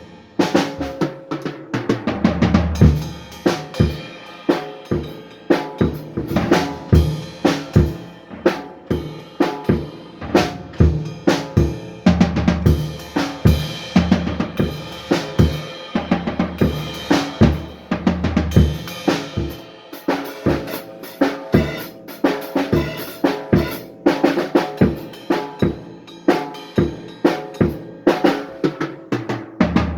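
A drum kit playing a steady groove, snare and bass drum about twice a second, over bass and other instruments with no singing. The playing stops at the very end and rings away.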